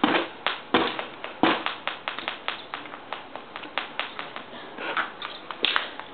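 A stick tapping and knocking, a run of irregular taps with a few louder knocks in the first second and a half and again near the end.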